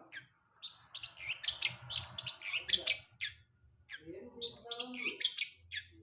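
Long-tailed shrike (cendet) singing a fast run of quick, high chirps and trills, in two bursts with a short pause about halfway through.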